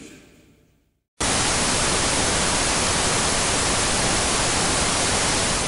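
Old television static: a steady hiss that switches on suddenly about a second in, after the last ring of the band's music has died away.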